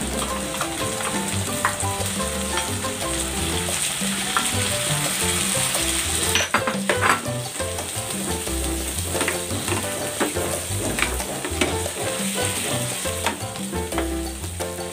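Peeled raw shrimp sizzling in hot oil and butter with garlic and onion in a nonstick frying pan. A spatula stirs them, scraping and tapping the pan, with a cluster of taps about six to seven seconds in. Background music runs underneath.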